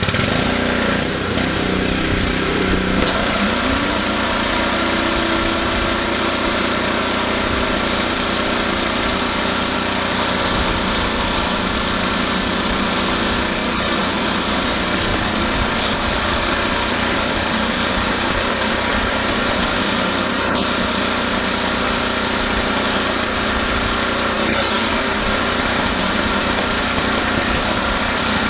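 Honda-engined gas pressure washer running steadily under load, with high-pressure water hissing out of a Ryobi 15-inch surface cleaner's spinning spray bar onto concrete. The engine note climbs once about three seconds in, then holds steady.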